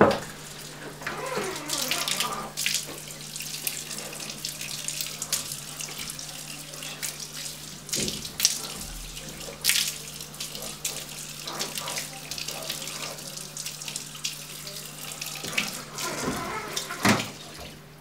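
Water from a barber's handheld shower sprayer running over a customer's hair and splashing into a salon wash basin, with a couple of sharp clicks about halfway through.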